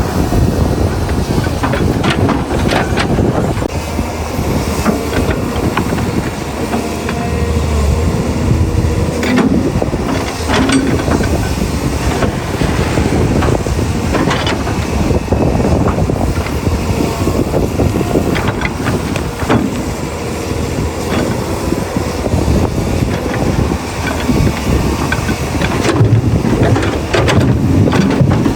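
Excavator working, its diesel engine running steadily under scattered knocks and clanks from the digging.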